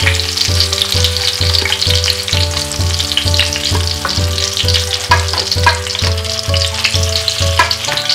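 Hot oil sizzling steadily in an aluminium karahi as fried eggplants and potato pieces are lifted out with a spatula. Under it runs background music with a steady beat.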